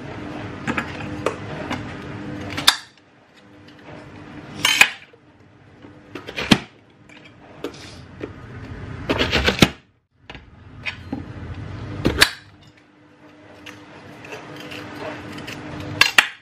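Plastic push-down vegetable chopper being pressed shut again and again, each press a sharp clack as pepper and onion are forced through its grid blade. There are about six loud clacks a few seconds apart, with lighter knocks and handling of vegetable pieces between them, over a faint steady hum.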